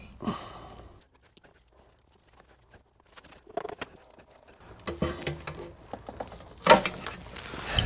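Screwdriver prying and scraping at the edge of a Toyota Prius's silicone-sealed lower oil pan: scattered small metal clicks and scrapes, with one sharp, louder knock near the end as the pan is worked loose.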